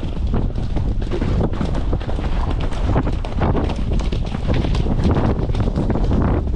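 Wind rushing over the microphone of a rider's camera on a horse moving fast, with the horse's hoofbeats on the soft, muddy track heard as irregular thuds under the wind.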